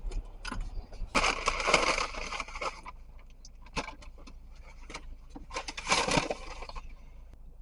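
Rustling and crinkling handling noise in two bursts, one lasting about two seconds and a shorter one near the end, with scattered clicks between them over a low steady hum.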